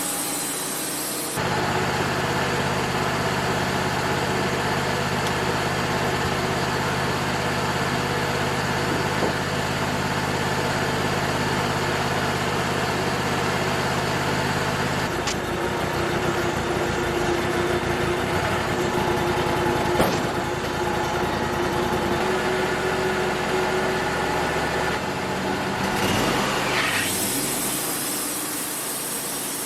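Wood-Mizer LT35 portable sawmill's engine running steadily, its note shifting abruptly a few times, with a short glide in pitch near the end.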